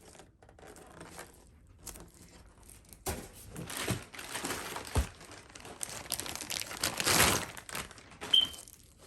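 Plastic packaging crinkling and rustling as boxed taillights are handled, getting busier about three seconds in, with one thump about five seconds in and a short high squeak near the end.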